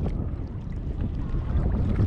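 Wind buffeting a cap-mounted GoPro's microphone in a steady low rumble, with faint splashes and drips from a kayak paddle.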